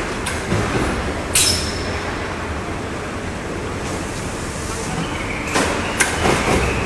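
Factory shop-floor noise: a steady low machinery rumble, broken by short, sharp, bright bursts about a second in and twice more near the end.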